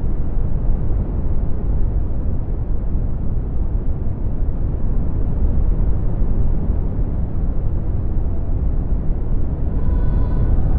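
Synthesized brown noise: a deep, steady rushing hiss weighted toward the low end, swelling and easing slightly in level. Near the end a faint pitched background sample starts to fade in.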